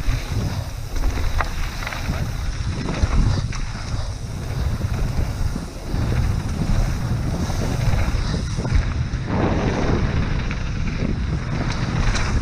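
Wind buffeting the camera microphone as a mountain bike rides down a trail, a steady rushing rumble with scattered knocks and rattles from the bike over rough ground.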